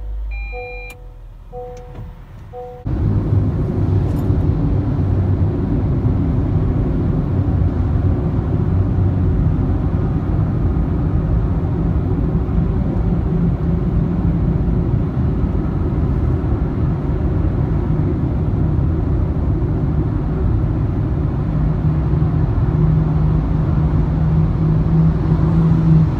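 A repeating two-tone electronic chime of a Honda Freed+ Hybrid beeps for the first few seconds. About three seconds in, steady road and engine noise of the car at highway speed takes over suddenly, with a low hum under it.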